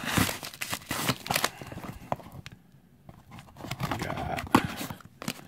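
Packaging being handled: paper packing rustling and crinkling as it is pulled from a postal box, with small knocks. It goes quiet for about a second in the middle, then more handling with a sharp tap near the end.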